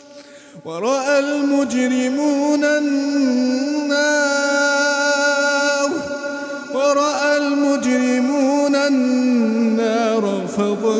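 Male reciter chanting Quran verses in a calm, melodic tajweed style: long held notes with ornamented turns in pitch, with a short break about six seconds in.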